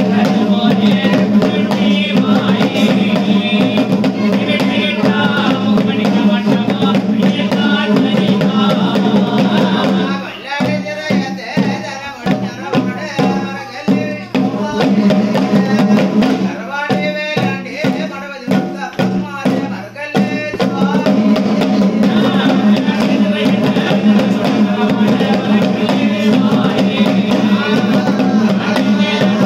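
Kalampattu (thottam pattu) devotional singing by a group of men, with drums beaten with sticks. About ten seconds in, the dense sound thins for about ten seconds to separate drum strokes under broken sung phrases, then the full singing and drumming return.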